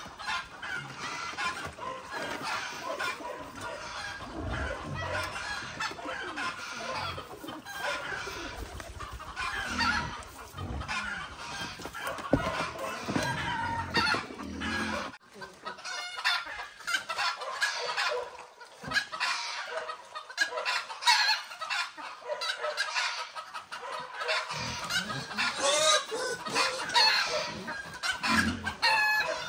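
Chickens clucking, several calls overlapping.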